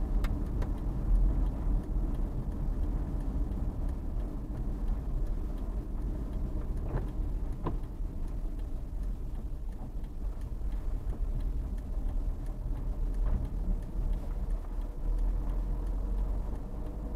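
Steady low engine and road-tyre rumble of a car being driven, heard from inside the cabin.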